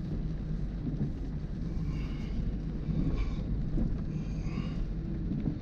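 Range Rover Sport running slowly over a rough, wet gravel track, heard from inside the cabin: a steady low rumble of engine and tyres on the loose surface.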